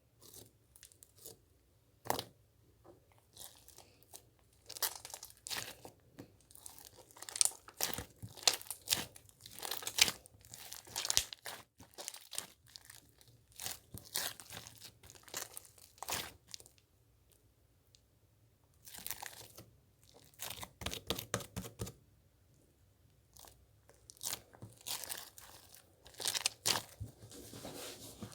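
Slime mixed with soothing gel being squished and stretched by hand, giving irregular bursts of crackling and popping clicks with short pauses between handfuls.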